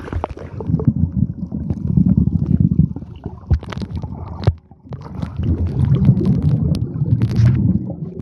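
Muffled low rumbling and gurgling of water heard through a camera held underwater, with scattered sharp clicks and a brief drop about halfway through.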